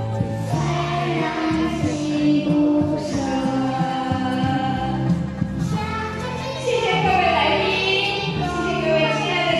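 Music: a song with sung vocals over instrumental backing, playing without a break.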